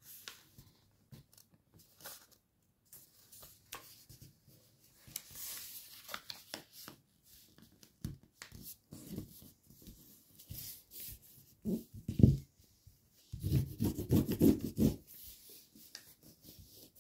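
A sheet of paper being folded and creased by hand on a tabletop: soft rubbing and rustling with scattered small taps. About three-quarters of the way through comes a louder run of dull knocks and rubbing as the creases are pressed down.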